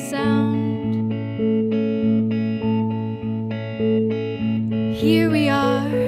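Two electric guitars playing a slow, picked chord pattern, with a woman's singing voice coming in about five seconds in.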